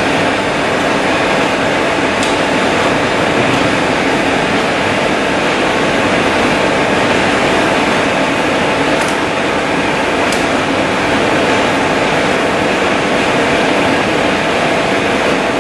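Herbert 9C-30 combination turret lathe running under power, its headstock gearing and spindle making a steady mechanical noise, with a few faint clicks.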